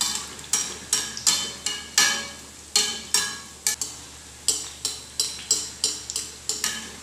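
Fritters sizzling in hot oil in a kadhai while a perforated steel spatula repeatedly scoops oil over them, the spatula clinking against the pan about two to three times a second. The clinking stops just before the end.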